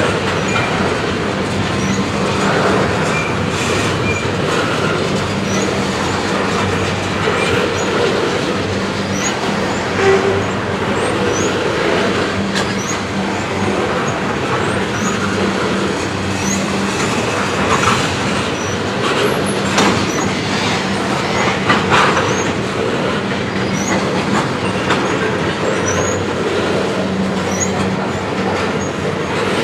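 Freight train of tank cars rolling past close by: steady wheel-on-rail rumble and clatter, with a few sharper knocks.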